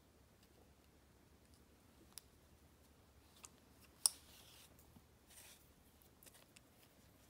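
Quiet handling sounds of yarn being sewn around a crochet-covered Christmas bauble with a wool needle: a few small, sharp clicks, the loudest about four seconds in, and a soft rustle of yarn being drawn through a little after.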